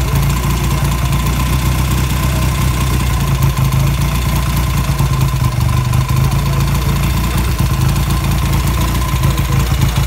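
BSA Gold Star's single-cylinder engine idling steadily, with an even exhaust beat and no revving.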